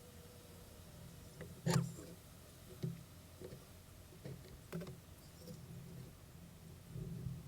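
Wooden beehive parts being handled during a hive inspection: a few sharp knocks and clicks, the loudest about two seconds in, over a faint low hum.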